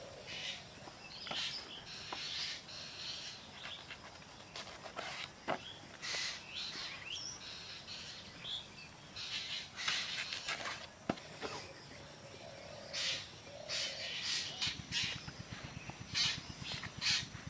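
Several birds calling outdoors, short high calls coming one after another and overlapping.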